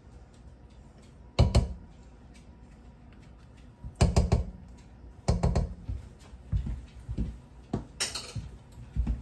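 A utensil knocking and clacking against a cooking pot and a container as butter is scraped into the pot: a few sharp knocks with lighter taps in between.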